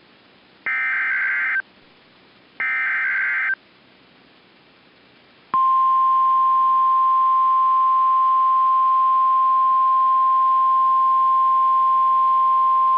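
Emergency Alert System header. Two short bursts of the warbling SAME data tones, each about a second long, are followed about five and a half seconds in by the steady single-pitch 1050 Hz NOAA Weather Radio alert tone. This is the signal that a National Weather Service warning, here a winter storm warning, is about to be read.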